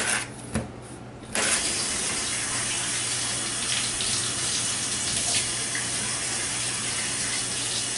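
A couple of short knocks, as of a knife on a metal sheet pan, then, about a second in, a steady rush of running water that starts suddenly and keeps on.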